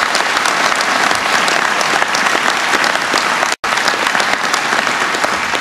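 A large audience applauding steadily, a dense patter of many hands clapping. The sound cuts out for an instant about three and a half seconds in.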